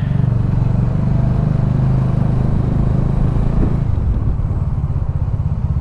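Bajaj Dominar 400's single-cylinder engine running at low road speed: a steady low engine note that drops a little about four seconds in.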